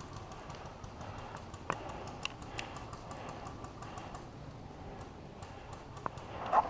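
Many faint scattered clicks and ticks, with a few sharper clicks and one louder knock near the end.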